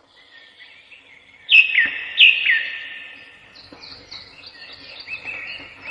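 Birds chirping: two loud calls that sweep down in pitch about a second and a half in, then a run of softer repeated chirps.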